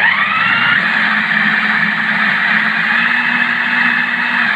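Electric food processor's motor chopping red cabbage: it starts abruptly, its whine rising as the blade spins up, then runs steadily at full speed.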